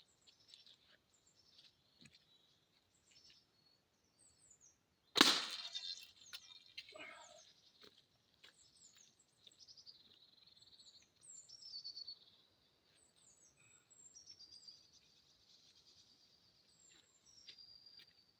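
A 150-grain field-tip arrow striking a motorcycle helmet once, about five seconds in, with a sharp crack and a short ring: the hit does not properly penetrate the shell. A weaker knock follows about two seconds later, and birds chirp throughout.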